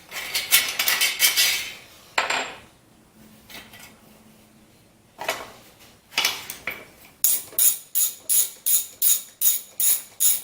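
Steel cylinder-head bolts clinking as they are handled and laid out one by one, then a run of about a dozen sharp, evenly spaced metallic clicks, roughly three a second, near the end.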